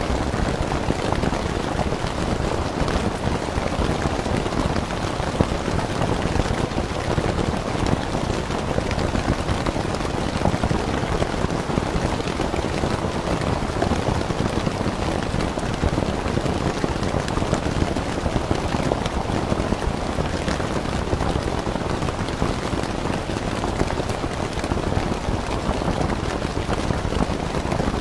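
Steady rain falling on a tent, an even, dense hiss with no single drops or thunder standing out.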